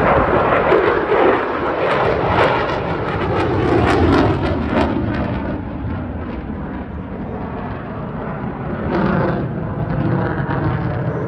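Military jet flying past, loud engine noise with a crackle that peaks in the first half and a pitch that falls as it goes by, then eases off before swelling again near the end.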